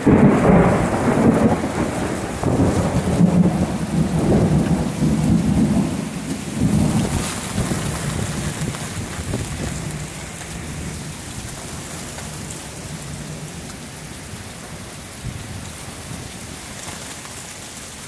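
A loud clap of thunder right at the start that rolls on in waves for about ten seconds and fades, over the steady hiss of heavy rain.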